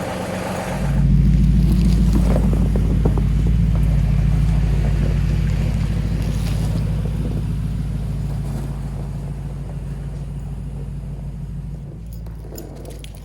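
An engine idling as it warms up. It is a steady low running hum that gets louder about a second in, then slowly fades.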